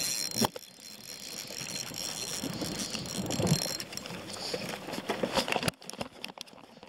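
Shimano Exage 1000 FD spinning reel being cranked to reel in a hooked fish: a steady gear whir for the first few seconds, then scattered clicks and handling knocks.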